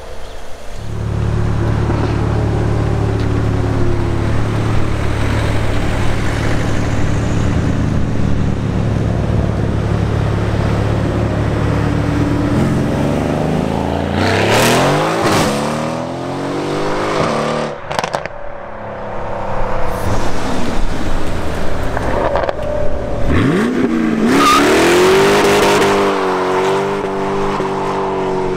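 A sports car's engine is held at steady high revs for about twelve seconds, with tyre smoke left on the road: a burnout. The revs then rise as the car accelerates away through the gears, with sharp cracks at the gear changes. About 23 seconds in, a second car's engine revs up sharply from low and accelerates hard.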